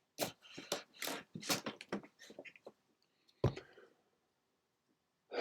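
A quick run of small clicks and taps for about two seconds, then a single short knock about three and a half seconds in.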